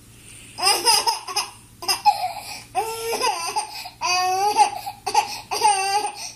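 Baby laughing in a series of short, high-pitched bursts, about five in all, with brief pauses between them.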